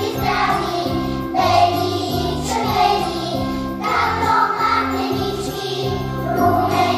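A group of children singing together over a recorded instrumental backing track with a steady, stepping bass line.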